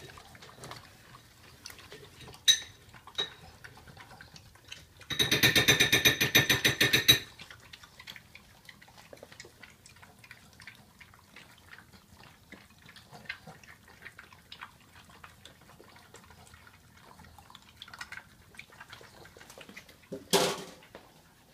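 Boston terriers licking and lapping soft food from ceramic bowls: a run of small wet clicks and taps of tongue against bowl. About five seconds in, a loud buzzing sound lasts about two seconds. A short, louder sound comes near the end.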